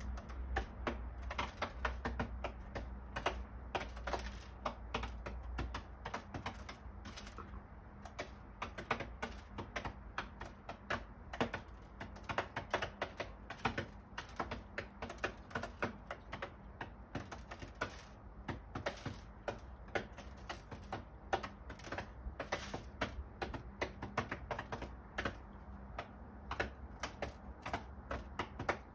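Eurasian collared doves pecking seed off a hard windowsill: a fast, irregular run of sharp little taps, several a second.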